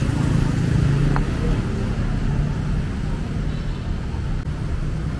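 Street traffic: motor vehicle engines running with a steady low rumble, a little louder in the first second or so.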